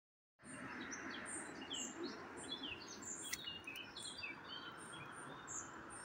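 Several small birds chirping and calling, short high notes and quick whistles overlapping, over a steady background hiss. One sharp click about three seconds in.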